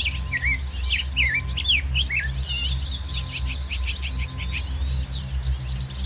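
Several birds chirping, trilling and whistling in quick, overlapping calls, over a steady low rumble.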